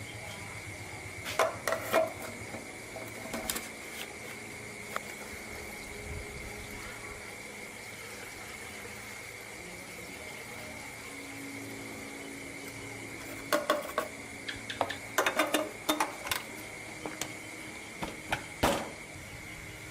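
Clinks and knocks of metal tools and motorbike parts being handled, in a few short clusters (a couple near the start, a longer run about two-thirds of the way in), over a steady high-pitched whine.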